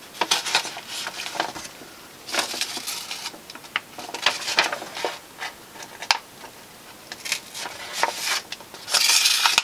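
Sheet of paper rustling and crinkling as it is handled and a needle and thread are pushed and pulled through it for a whipstitch, in irregular short bursts, with a longer, louder rustle near the end.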